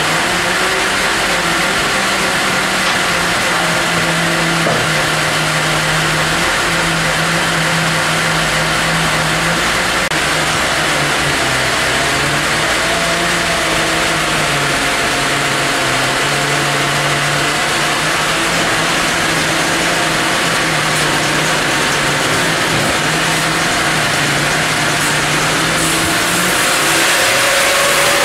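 Horizontal band sawmill running and sawing through a log: a steady, loud machine noise with motor tones that shift in pitch. It grows a little louder near the end.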